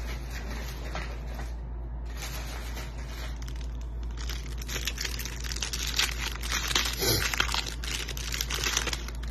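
Clear plastic wrapper of a pack of football trading cards crinkling and tearing as it is opened by hand, busier and louder from about five seconds in.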